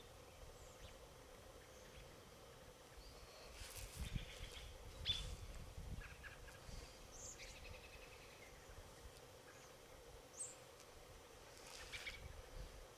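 Faint outdoor ambience with scattered short bird chirps, bunched around four to five seconds in and again near the end, over a few soft low bumps.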